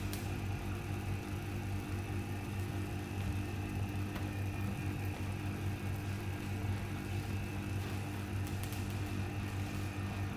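Van de Graaff generator running: the electric motor and belt give a steady hum, with a few faint ticks over it.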